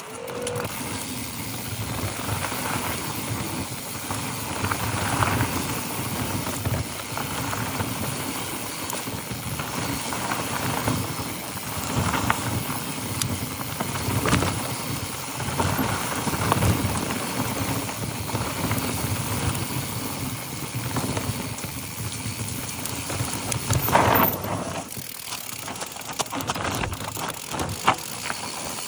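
Mountain bike riding down a dry, rocky dirt trail: tyres rumbling and crunching over dirt and stones and the bike rattling over bumps, with irregular knocks and a couple of harder jolts near the end.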